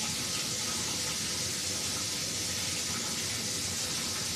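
Warm water running steadily from a tap.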